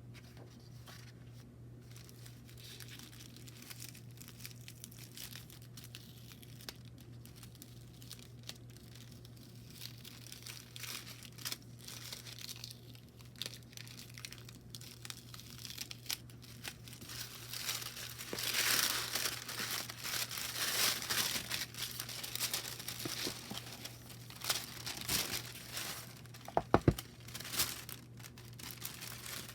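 Oracle card deck's packaging being unwrapped by hand: crinkling and tearing of wrapping material, getting louder about two-thirds of the way in, with a couple of sharp clicks near the end. A faint steady hum runs underneath.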